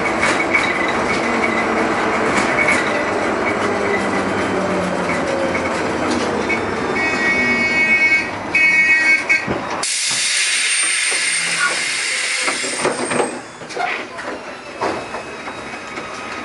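LM-68M tram running on rails, heard from inside: rolling noise with rail-joint knocks, a high wheel squeal and a pulsing high tone late in the run. About ten seconds in a loud hiss of air starts suddenly and cuts off about three seconds later, followed by quieter knocks.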